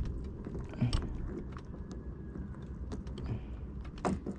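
Small clicks and light knocks of gear being handled in an inflatable boat, a stronger knock about a second in and another near the end, over a low steady rumble.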